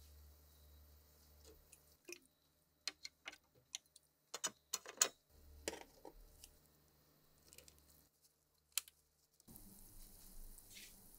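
Scattered light clicks and taps of rusty gun parts and a copper electrode bar being handled as the parts are set up in an electrolysis tank. From about nine and a half seconds a steady fizzing begins: bubbles streaming off the submerged part as the electrolytic rust removal runs.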